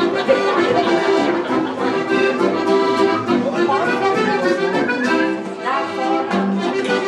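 Live traditional Bavarian folk music with a regular beat, an accordion carrying the tune.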